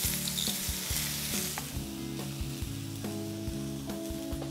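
Vegetables sizzling in hot oil in a stainless steel wok, stirred with a wooden spatula that knocks against the metal now and then. The sizzle is strongest at first and dies down after about a second and a half.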